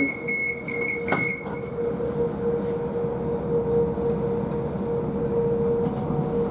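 Moscow Metro train running between stations, heard from inside the carriage: wheel and track rumble with a steady whine. A single click comes about a second in.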